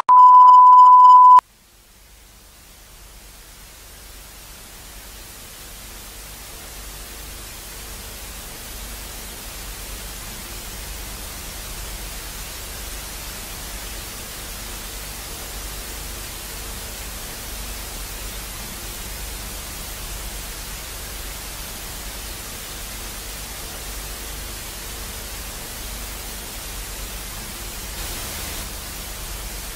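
A steady, high beep for about a second and a half that cuts off, then a hiss of static that fades in and holds steady: a broadcast sign-off tone followed by dead-air static.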